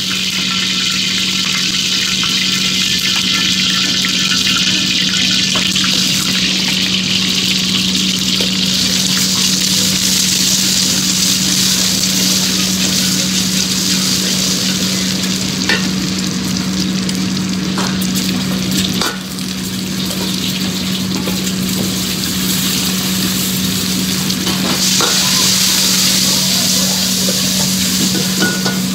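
Oil, then egg and rice, sizzling and frying in a hot wok, with a steady hiss throughout. A metal ladle stirs and now and then clicks and scrapes against the wok, over a steady low hum.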